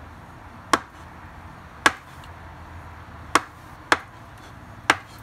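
Kitchen knife chopping avocado on a wooden cutting board: five sharp knocks of the blade on the board, at uneven intervals.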